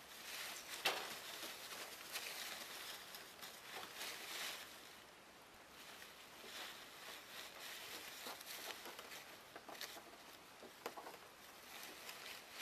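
Shredded-paper bedding rustling in swells as ferrets scramble and wrestle in a wire cage, with a few sharp clicks or knocks, the loudest about a second in.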